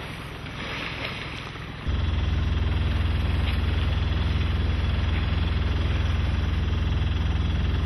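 Sailboat's engine running with a steady low rumble that starts abruptly about two seconds in, after a stretch of wind and water noise.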